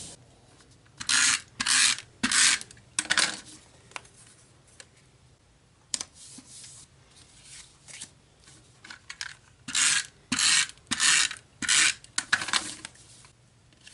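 Short, raspy strokes of a tape runner laying adhesive on cardstock. They come in two groups, about four strokes a little after the start and about five more near the end.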